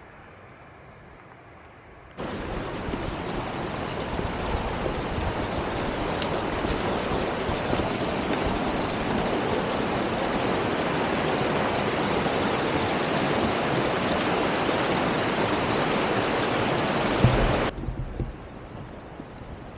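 Loud, steady rushing water that starts abruptly about two seconds in and cuts off abruptly near the end.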